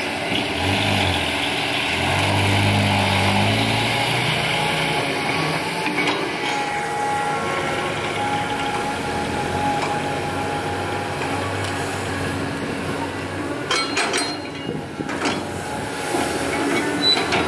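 A CAT 320D hydraulic excavator's diesel engine working under load, its pitch rising and falling over the first few seconds as it digs and swings, with a loaded dump truck's diesel engine pulling away. A short cluster of knocks and scrapes about fourteen seconds in as the bucket works the ground.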